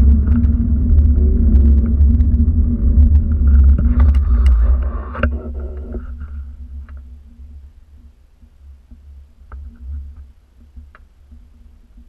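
Low rumble of wind buffeting and handling noise on a moving GoPro. It dies down about five seconds in as the camera comes to rest, leaving faint scattered clicks.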